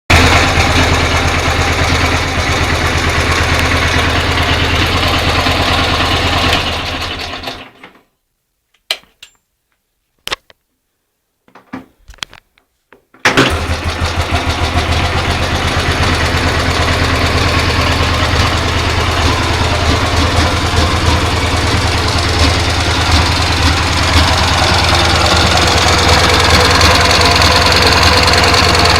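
IZh two-stroke twin-cylinder motorcycle engine running with a knock that the owner places in the right cylinder. The engine dies away about seven seconds in, a few short clicks follow in the quiet, and about thirteen seconds in it starts again and runs steadily.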